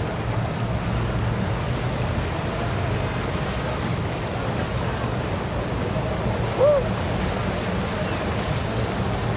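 Steady wash of water and wind with the low hum of boats cruising on the inlet. About two-thirds of the way in, a single short high call briefly rises and falls.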